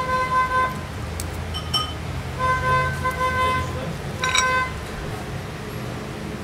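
A vehicle horn honks in short steady blasts, three times, over a low traffic rumble. Light clicks of cutlery on a plate come in between.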